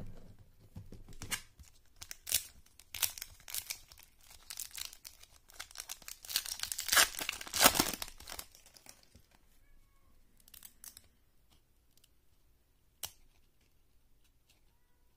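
Foil wrapper of a 1997 Playoff Contenders football card pack being torn open and crinkling, loudest about six to eight seconds in. After that come only a few faint clicks as the cards are handled.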